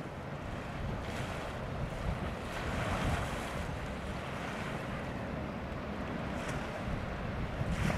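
Heavy sea waves breaking over a harbour breakwater: a continuous rush of surf that swells about three seconds in, with wind rumbling on the microphone underneath.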